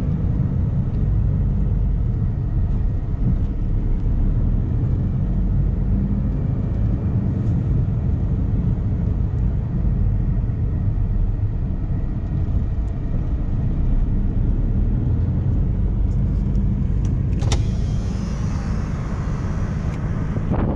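Car driving along a road, heard from inside the cabin: a steady rumble of engine and tyres. About three-quarters of the way through a sudden louder rush of air starts, with wind hissing over the microphone.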